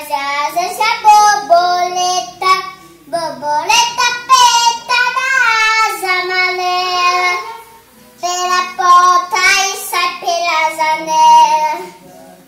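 A young girl singing to herself in long, sliding, held notes. She sings three phrases, with short breaks about three seconds and eight seconds in.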